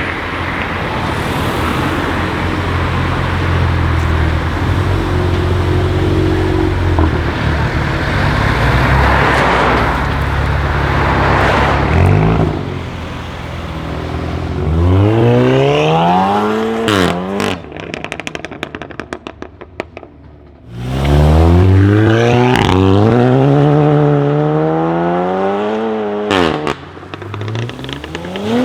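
Tuned Volkswagen Golf 7 R with a turbocharged 2.0-litre four-cylinder: a steady low engine drone, then two hard accelerations, each rising in pitch and cutting off sharply into a string of exhaust crackles and pops on lift-off. A third acceleration begins near the end.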